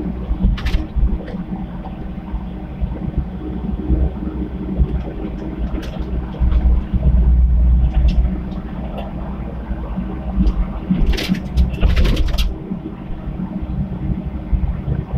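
Komatsu PC75 mini excavator's diesel engine running and working under load, swelling louder for a couple of seconds around the middle. Near the end comes a short cluster of sharp clattering knocks.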